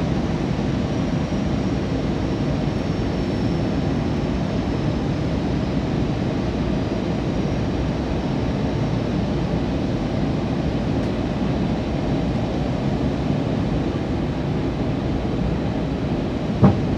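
Steady cabin noise inside an Airbus A320 airliner on descent: an even rush of engine and airflow noise, strongest in the low range. A brief loud blip near the end.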